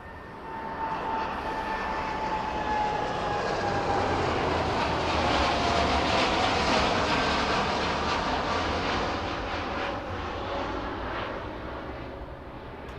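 Boeing 787 jet airliner taking off and passing. Its engine noise swells to a peak about halfway through and then fades, while a whine drops steadily in pitch.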